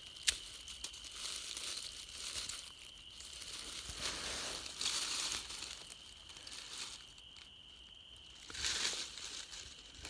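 Rustling and crinkling of a fresh hemlock bough's needles and twigs brushing over dry fallen leaves as the branch is handled and moved, in several separate bursts, with one sharp tick just after the start.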